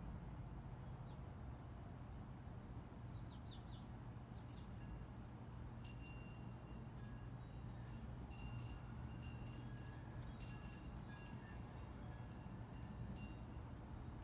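Faint high tinkling, chime-like notes, many short rings starting about six seconds in, over a low steady hum.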